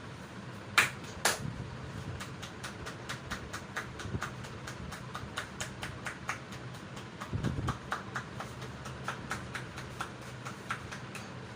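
Hands tapping rhythmically on the body in a percussive massage, short sharp smacks at about four a second, after two louder slaps about a second in. A steady low hum runs underneath.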